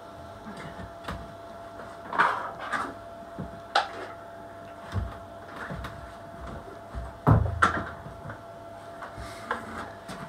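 Irregular knocks and clatters of wooden tools and boards being handled and set down on a wooden workbench, the loudest about seven seconds in, over a faint steady hum.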